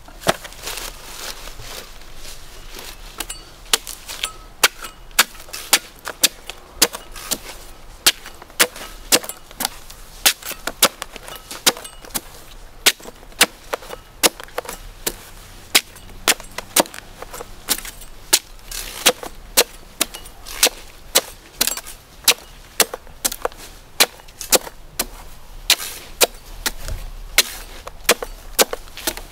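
Dwarf coconuts being chopped with a blade: a long run of sharp chopping strikes, about two a second, sparser in the first few seconds.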